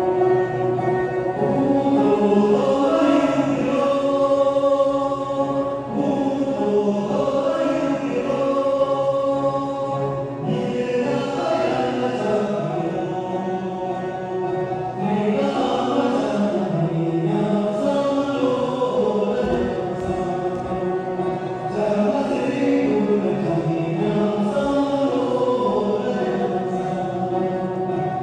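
Tibetan folk song sung in chorus by a group of voices, accompanied by plucked dranyen (Tibetan lutes), in a steady unbroken melody.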